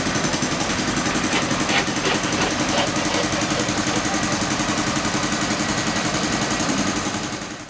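An engine running steadily at idle with a fast, even pulse, with a few light knocks about a second or two in, fading out at the end.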